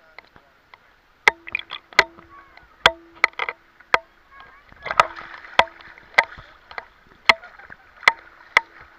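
Small waves slapping against an action camera held at the surface of shallow sea water. From about a second in there is a sharp, irregular slap every half second to a second, with a light wash of water between them.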